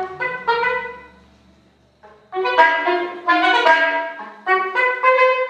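Unaccompanied soprano saxophone playing phrases of separate, sharply started notes. The first phrase fades away into a short pause of under a second, then a new phrase begins.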